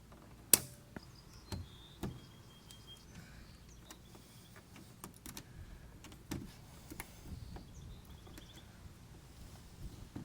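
Scattered clicks and knocks of hand-tool work, with one sharp click about half a second in, and a few short, faint high whirs like a small motor.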